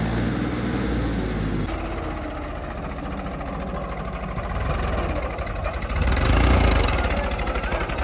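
Mahindra 395 DI Turbo tractor's diesel engine running hard under throttle while the tractor turns in tight circles on soft ground. It grows louder about six seconds in.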